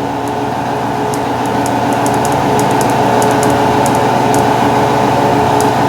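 Steady machine hum made of several even tones, growing slightly louder, with faint light ticks scattered over it.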